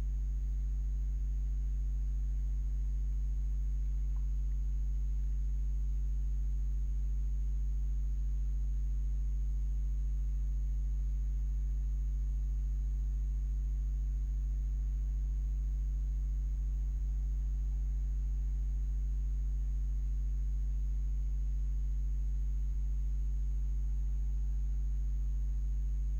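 Steady low electrical mains hum with a ladder of evenly spaced overtones, and a faint high-pitched whine above it.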